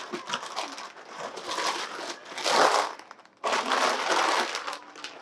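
Crinkly plastic snack bags being handled, squeezed and crumpled, in irregular bursts of rustling. The longest and loudest crinkling comes from about three and a half seconds in.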